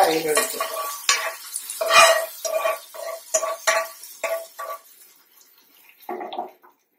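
A metal spoon stirring dal curry in a metal pot, clinking against the sides about twice a second with a ringing tone, over the fading sizzle of a hot mustard-seed and chilli tempering just poured in. The stirring stops about five seconds in.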